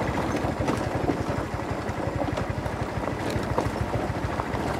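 A vehicle's engine running with a fast, rough low pulsing, with some wind noise on the microphone.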